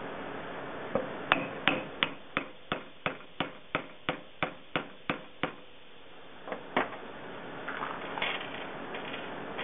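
A plastic-faced hammer tapping on a metal tube to drive a ball bearing's inner ring down the shaft of a blower motor: a run of about fourteen even, sharp taps at about three a second, then two more taps after a short pause. A little handling noise follows near the end.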